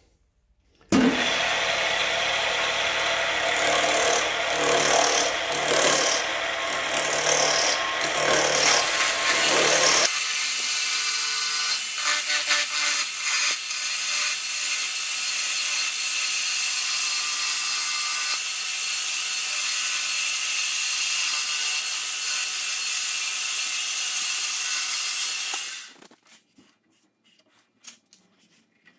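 Wood lathe spinning a wooden hammer-handle blank while a hand-held turning tool cuts it down to a round, a loud hissing, scraping cut. It starts about a second in, turns steadier and higher about ten seconds in, and stops a few seconds before the end.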